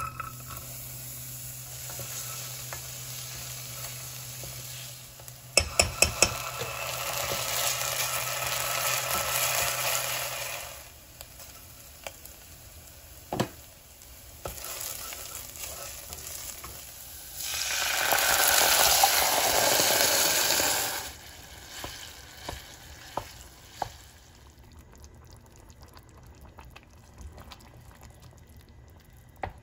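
Food sizzling in a frying pan as it is stirred, with a few sharp knocks of a utensil against the pan. The sizzle comes and goes in stretches and is loudest for a few seconds past the middle.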